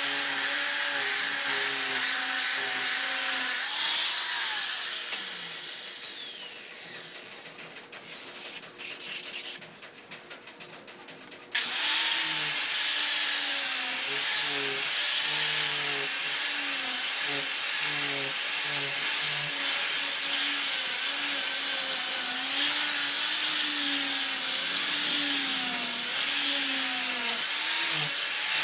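Angle grinder with a sanding disc sanding wood, switched off about four seconds in, its whine falling as it winds down. After a few quieter seconds, an electric palm sander starts abruptly and runs on, its pitch wavering as it is pushed across the wood.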